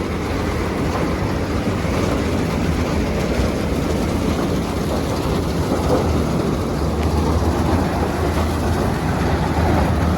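Swaraj 4x4 combine harvester running steadily while harvesting maize, a dense, even machine noise over a low engine drone.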